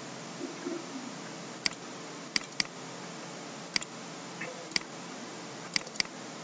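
Computer mouse button clicking: seven sharp clicks spread over the time, two of them quick double clicks, over a steady microphone hiss.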